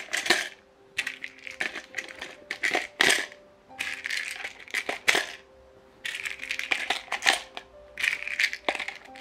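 Plastic pill-organizer day pods being pushed back into their tray: repeated clicks and clatter of plastic on plastic, with the pills rattling inside the pods, in irregular bursts a second or so apart.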